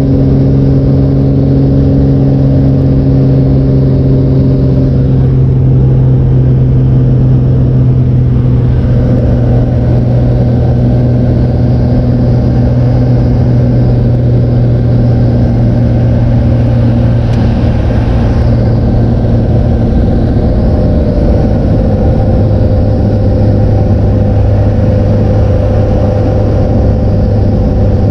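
A floatplane's engine and propeller droning steadily, heard from inside the cabin. The drone drops slightly in pitch about two-thirds of the way through.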